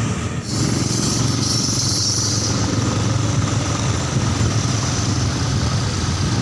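Motorcycle engine running steadily with road noise while riding slowly through traffic, heard from the rider's own bike.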